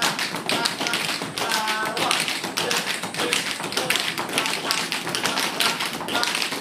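Tap shoes of a group of dancers striking the studio floor in quick, dense, overlapping rhythms.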